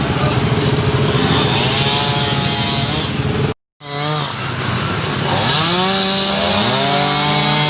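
Chainsaw engine running steadily. It cuts out briefly just past halfway, then revs up, its pitch climbing over about a second, and holds at high revs.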